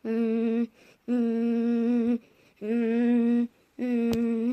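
A young child's voice making a run of hummed calls, each held on one steady pitch for under a second with short breaks between, four in all, imitating stampeding wildebeest. A single sharp click near the end.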